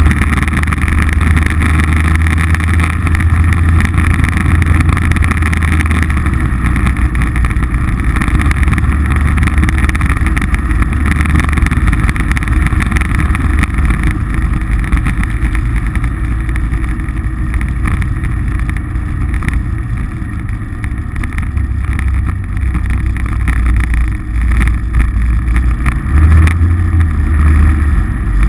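Polaris RZR side-by-side's engine running steadily under way, with a low drone. It eases off a little around twenty seconds in and picks up again near the end.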